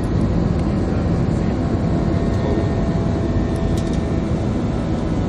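Airbus A320's jet engines and rushing airflow heard from inside the passenger cabin during takeoff: a loud, steady, low rumble with no change in pitch.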